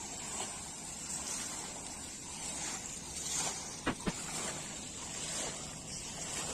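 Water fountain splashing steadily, with two sharp clicks close together about four seconds in.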